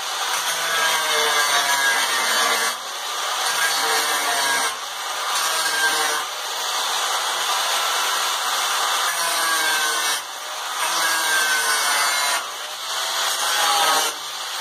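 Angle grinder cutting through the steel body of a worn-out diamond saw blade, about an eighth inch thick. The grinding runs loud and continuous, with short dips every couple of seconds and a whine that shifts in pitch as the load changes.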